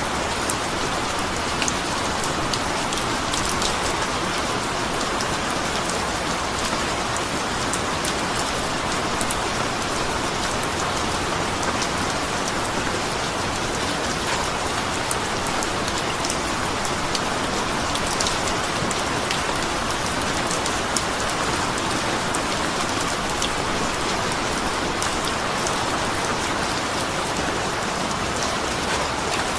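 Steady rain falling, a dense even hiss with many fine individual drop ticks on a surface.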